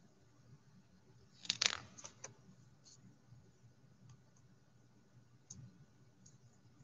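A picture-book page being turned: a short cluster of paper rustles and clicks about one and a half seconds in, then a few faint ticks.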